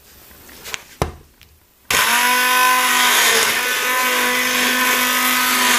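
Hand-held immersion blender switched on about two seconds in, its motor running at a steady pitch as it purées cooking liquid and small onions in a saucepan. A single knock about a second in, before it starts.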